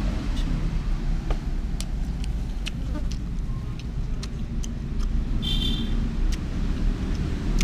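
Steady low rumble of passing road traffic, with scattered small clicks and taps and a brief high-pitched tone a little past the middle.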